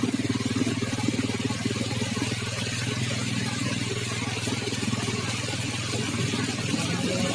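Vehicle engine running steadily at an even pitch.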